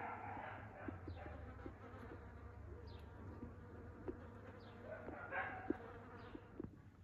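Honeybees buzzing steadily while they forage on fruit-tree blossoms. Faint, short, high chirps that fall in pitch come every second or two.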